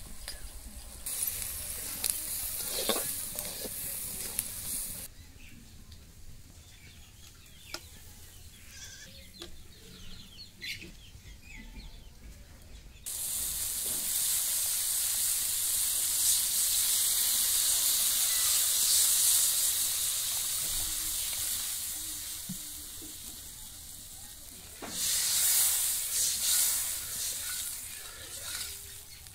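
Vegetables and spices frying with a sizzle in a hot karahi, with the scrape and clink of a metal spatula stirring. About halfway through, water poured into the hot pan brings a sudden loud, steady hiss that lasts about twelve seconds, followed by more stirring.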